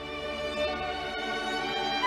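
Solo violin playing long held notes over a soft orchestral string accompaniment, growing a little louder toward the end.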